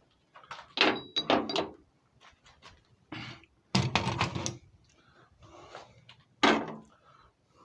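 Metal lathe tooling being handled and rummaged in a box: a series of irregular knocks and clunks, with a short ringing metallic clink about a second in.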